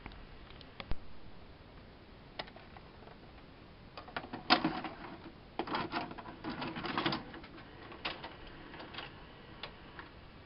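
Akai VS-P88 VHS video player's tape mechanism clicking and clattering as playback is stopped: a few single clicks in the first seconds, then a busier run of mechanical clicks from about four to seven seconds in.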